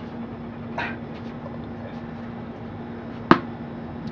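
Automatic ball-throwing fetch machine running with a steady low hum. A soft knock comes about a second in, and a single sharp smack a little after three seconds in is the machine launching a tennis ball.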